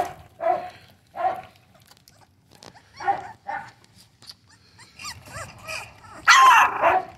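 Four-week-old American bully puppy barking: several short high yaps, then a louder, longer bark a little before the end.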